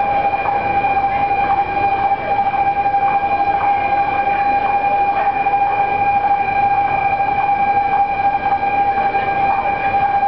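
Railway level-crossing warning alarm sounding one continuous steady tone that does not change in pitch, over street noise.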